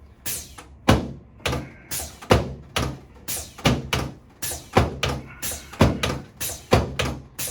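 A quick, steady series of sharp thuds, about two or three a second, from repeated chiropractic adjusting thrusts on a patient lying on the treatment table.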